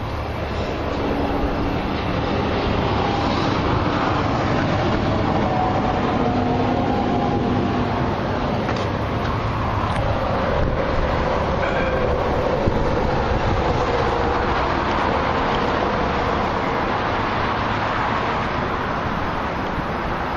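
A double-trailer road train on an A-converter dolly reversing: a steady rumble of the rig and its tyres rolling on pavement, with faint wavering squeals from the running gear.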